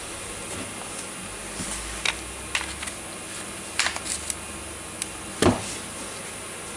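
Scattered light clicks and knocks of tools and parts being handled on a workbench, the loudest one about five and a half seconds in, over a faint steady hiss.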